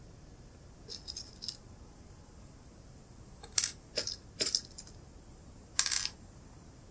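Metal straight pins rattling and clinking in a clear plastic pin box as pins are fished out by hand: several short bursts of rattling, the loudest near the end.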